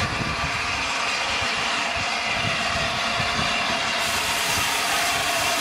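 Peppercorn A1 Pacific steam locomotive 60163 Tornado moving slowly along the platform on its train, a steady mix of running noise and steam. A brighter hiss comes in about four seconds in.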